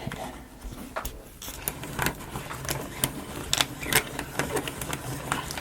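Irregular light clicks and taps of small balls and wooden parts of a wooden marble-run model being handled, coming more often in the second half.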